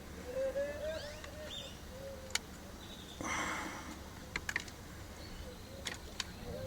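Birds calling outside, short low cooing calls repeated with faint higher chirps, over a few sharp clicks and a brief scrape of hand tools prying at the switch parts.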